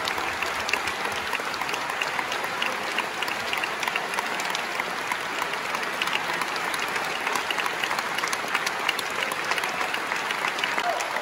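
Large opera-house audience applauding steadily, a dense patter of many hands clapping.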